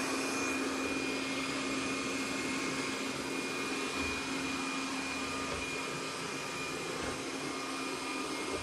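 Roborock Qrevo Curv S5X robot vacuum cleaner running: a steady whir with a constant low hum and a thin high whine held throughout.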